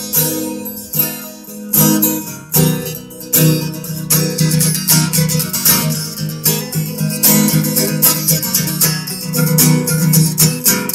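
Acoustic guitar strummed in a steady, quick rhythm: an instrumental passage of a live song, without singing.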